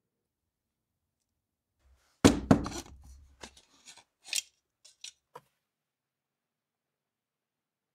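Hard parts being handled: a loud knock about two seconds in, a brief rattle, then a few lighter clicks and clinks.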